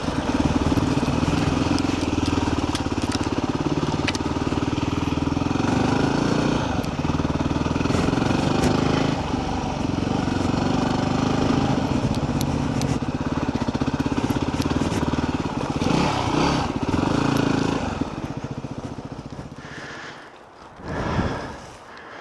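Yamaha WR250R's 250 cc single-cylinder four-stroke engine running steadily as the motorcycle is ridden. It drops away sharply about eighteen seconds in, and a short loud rustling burst follows near the end.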